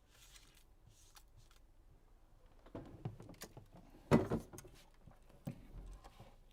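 Scattered small clicks and taps of a smartphone being handled on a workbench, with one louder short knock about four seconds in.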